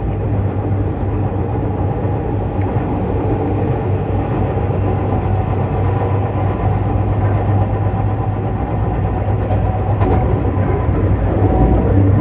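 Seibu 001 series Laview electric limited express train running at speed: a steady rumble of wheels and motors with a low hum.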